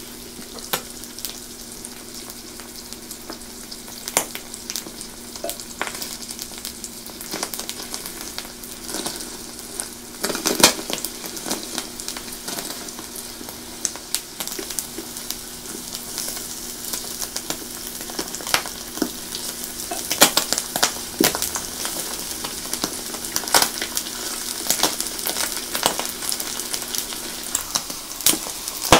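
Thick slices of grilling cheese frying in a pan: a steady sizzle with frequent sharp pops and crackles, growing busier and louder in the second half. A steady low hum runs under it and stops shortly before the end.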